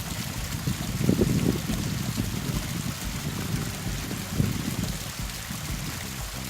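Running water, as of a stream or small waterfall, a steady rushing. Irregular low rumbles swell over it about a second in and again near four and a half seconds.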